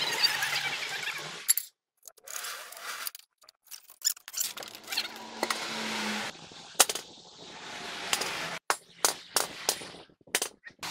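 Metal clanking and knocking from a heavy truck clutch assembly and pressure plate being handled, with many sharp knocks scattered throughout and a few short silent breaks.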